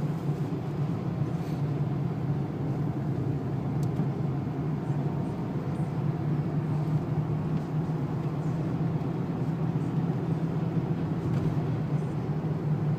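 Cabin noise of a Renault with a 2.0-litre turbo diesel, driven gently on a wet track: a steady low engine drone with tyre and road noise, holding even throughout.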